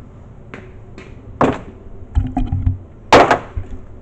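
A few sudden knocks and low thumps, the loudest a sharp knock about three seconds in.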